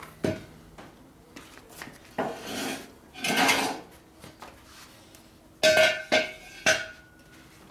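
Blocks being pulled out from under a motorcycle lift and handled. A knock near the start, a long scrape about two to four seconds in, then three sharp metallic clanks close together with a brief ring.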